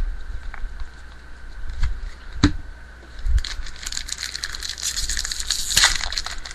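Baseball trading cards being handled and slid through by hand: a single sharp tap about two and a half seconds in, then a dense run of dry rustling and clicking as card stock slides against card stock.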